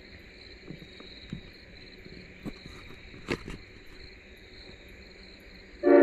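A steady night-time insect chorus with a high, even trill, broken by a few brief knocks, the sharpest a little past halfway. Music comes in right at the end.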